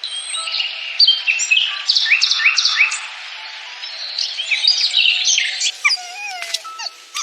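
Rapid high-pitched animal cries: a string of short chirping squeals, many falling in pitch, several a second. Near the end they turn into longer, lower sliding whines.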